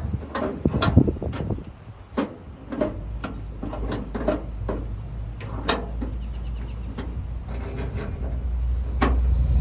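Irregular clicks and knocks of a 2000 Ford Ranger's tailgate lock and latch parts being worked by hand, over a low steady hum.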